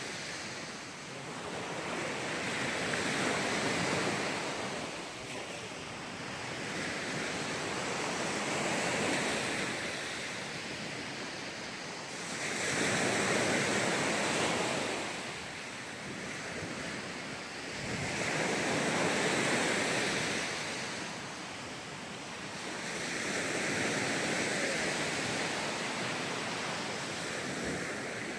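Small sea waves breaking on a sandy beach, the wash rising and falling about five times, roughly every five to six seconds.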